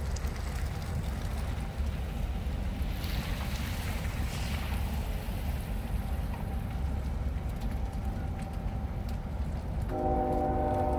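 A steady low outdoor rumble, then about ten seconds in a train horn starts sounding, a steady chord of several notes.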